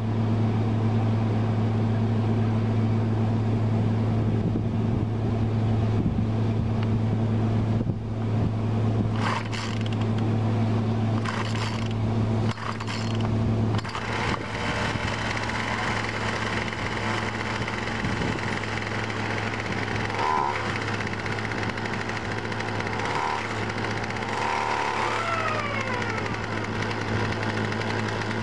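Craftsman 36cc two-stroke chainsaw engine on a friction-drive bike running steadily at idle, with a constant hum. Its note shifts slightly about halfway through.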